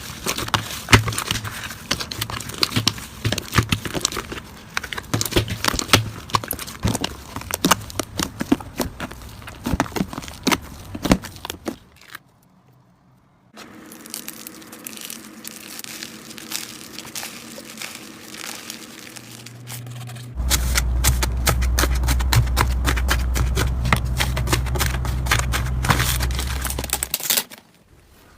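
Slime being squished and pressed by hand, making dense crackling, popping clicks. There is a brief silent break about twelve seconds in, and a steady low hum runs under the clicks for several seconds near the end.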